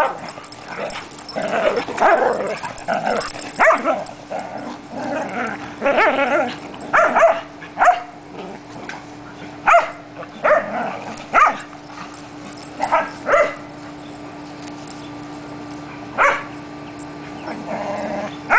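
Several dogs wrestling in play, barking in short, irregular bursts that thin out over the last few seconds.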